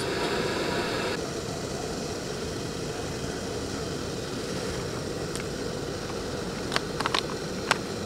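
A steady low rushing noise, with a higher hiss that stops about a second in and a few light clicks in the last few seconds.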